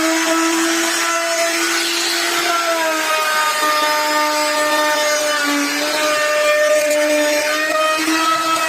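An electric power tool running steadily as it works wood, a motor hum whose pitch wavers slightly with the load, over a rasping noise.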